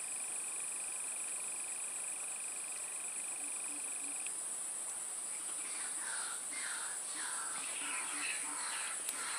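Insects and frogs calling: a steady high insect drone, a steady trill that cuts off about four seconds in, short low frog calls, and repeated chirping calls through the second half.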